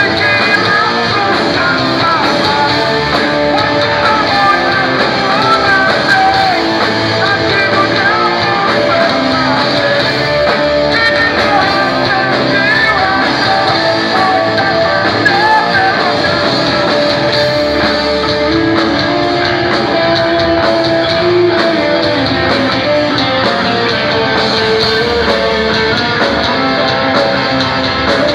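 Live grunge rock band playing loud, with electric guitars and singing.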